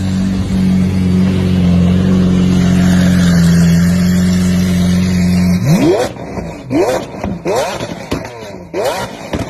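Sports car engine running at a steady pitch, then from about five and a half seconds in revving up again and again in quick rising sweeps, a little under a second apart.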